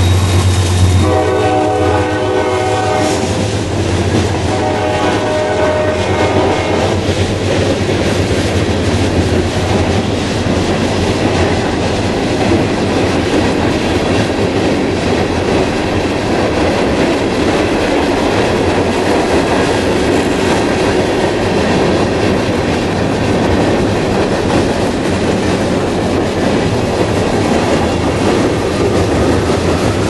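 Norfolk Southern C40-9W diesel locomotives pulling away, sounding their K5 air horn in two blasts, one about a second in and another about four seconds in, over the drone of the engines. Then the freight cars roll past with a steady clickety-clack of wheels over the rail joints.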